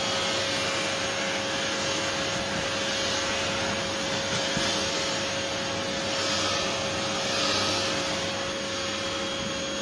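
Afloia pet-grooming vacuum with its clipper attached, running steadily: a rush of air with a constant motor whine, sucking up the dog's clipped hair.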